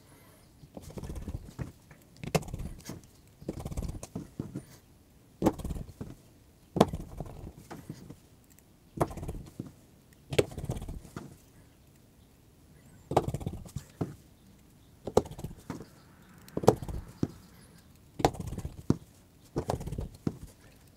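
Small clicks and light knocks of a smartphone being reassembled by hand: plastic internal covers clipped in and small screws driven with a precision screwdriver. A short cluster of clicks and thumps comes about every one to one and a half seconds.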